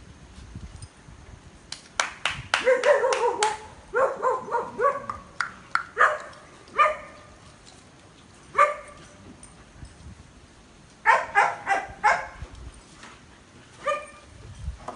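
Dogs barking in short bursts: a quick run of barks about two seconds in, single barks after that, and another run near the eleven-second mark.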